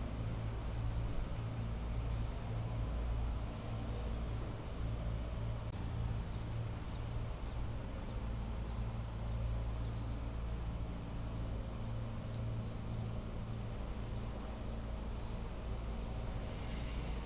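A steady low droning hum with a rumble in it, unchanging throughout. Over it, a run of faint high chirps comes about two a second for a few seconds in the middle, and there is a single sharp click about twelve seconds in.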